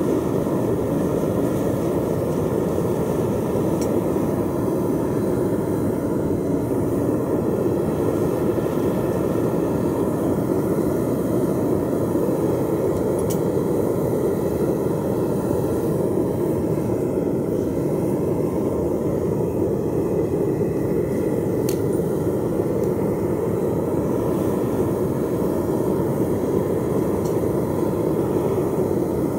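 Propane burner of a homemade foundry furnace running with the gas turned all the way up: a steady, loud rush of flame, with a few faint clicks.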